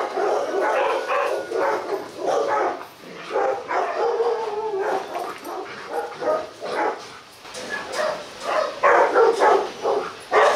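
Rottweilers barking, very loud, in rapid runs of short barks. The barking eases for a moment about seven seconds in, then comes back denser near the end.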